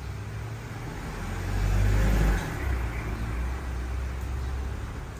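Low engine rumble of a passing road vehicle, swelling to its loudest about two seconds in and then easing off.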